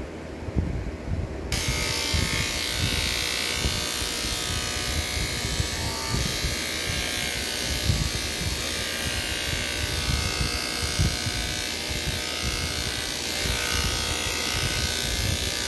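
Electric hair clippers start up about a second and a half in and run steadily while cutting through hair.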